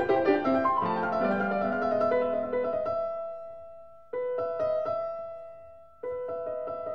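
Background piano music: a run of notes that fades away about halfway through, then sustained chords struck again twice, each dying away.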